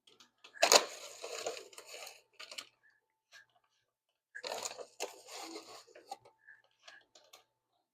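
Crinkling and rustling from handling in the kitchen, in two bursts of about two seconds each, with a few small ticks between them.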